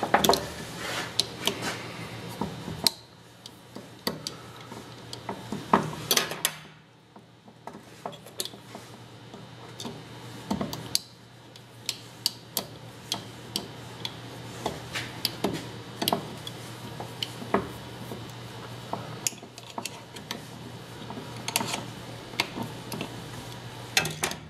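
Pliers and a screwdriver clicking and clinking against the metal housing of a Hutchens air sander being taken apart, with sharp clicks at irregular intervals throughout.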